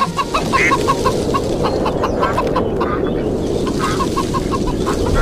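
Chickens clucking over a steady rush of strong wind that grows a little louder toward the end.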